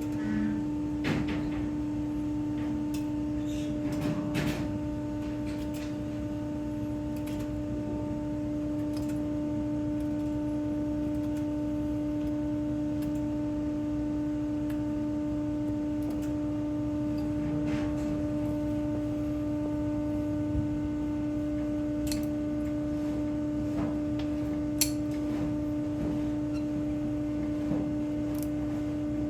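A steady machine hum holding one pitch throughout, over a low rumble, with a few short clicks and knocks.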